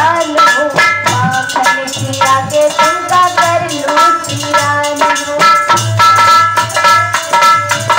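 Hindi devotional bhajan: a young woman's voice singing over a harmonium's held chords, with percussion keeping a steady beat.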